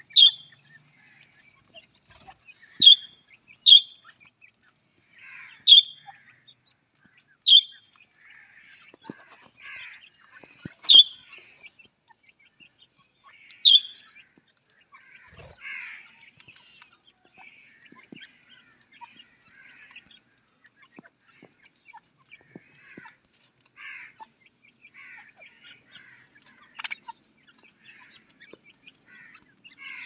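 Mixed flock of budgerigars, cockatiels and grey francolins calling: about seven loud, short, sharp calls over the first fourteen seconds, over soft, continuous chattering that goes on throughout.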